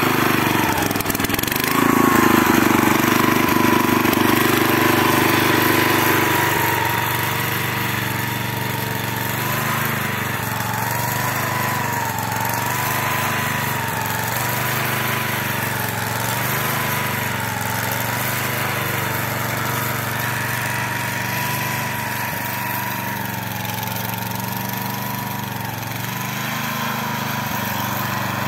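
Small engine of a two-wheel walking tractor running steadily while it pulls a mouldboard plough through soil, its pitch wavering slowly under the changing load. It is louder for a few seconds near the start.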